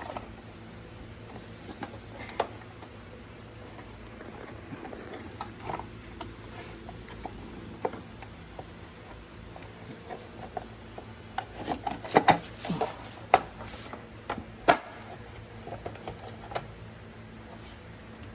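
Scattered clicks and knocks of hands working on a scooter's wiring and body parts, coming thickest about two thirds of the way through, over a steady low hum.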